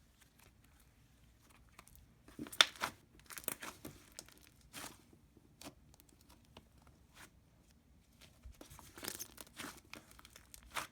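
Butter slime being stretched and squished by hand, giving off faint sticky crackles and clicks. They come in clusters about two and a half seconds in, and again towards the end.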